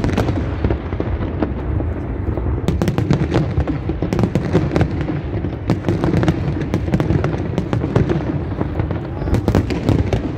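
Fireworks display: aerial shells bursting in quick succession, a continuous booming rumble overlaid with many sharp cracks, thickest about three seconds in and again near the end.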